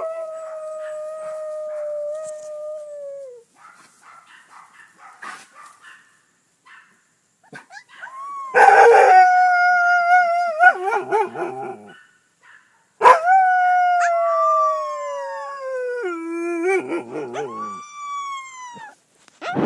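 Young wolf-hybrid pups howling: three long, high howls, each sliding down in pitch and breaking into a wavering cry at its end, with faint short whimpers between.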